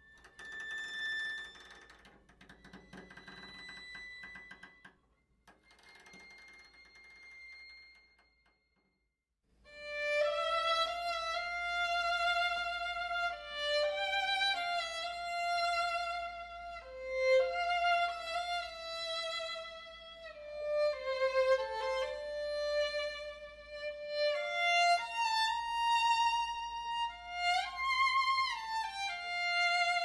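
Live stage score: a solo violin playing a slow melody of long, wavering held notes. It comes in about nine seconds in, after a stretch of faint, scattered sound and a moment of near silence.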